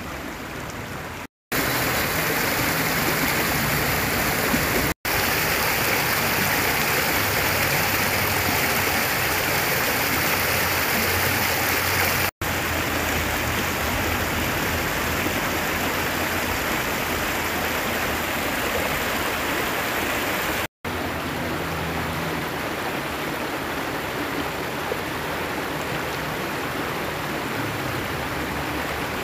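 Shallow stream rushing over rocks and small cascades, a steady rush of water. It cuts out briefly four times.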